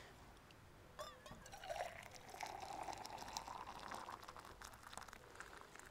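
Just-boiled water poured from an aluminium camping kettle into a tall mug. It is a faint pour that starts about a second in and rises slowly in pitch as the mug fills.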